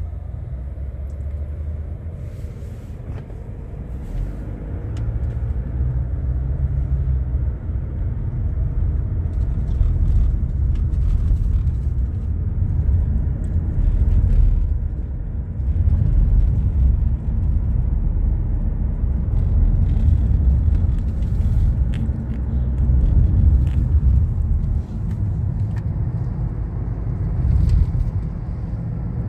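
Steady low road rumble heard from inside a moving car's cabin, tyres and engine while driving, a little louder after the first few seconds.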